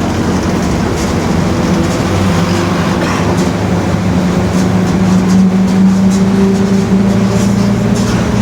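Mercedes-Benz OF-1721 BlueTec 5 city bus driving, its diesel engine running with a steady low drone that rises a little in pitch partway through as the bus gathers speed. The differential is droning.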